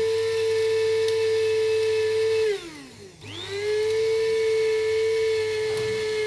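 Electric spice grinder motor running with a steady whine while grinding oven-dried shrimp shells into powder. About two and a half seconds in it is released and spins down, then is switched back on and spins up to full speed again.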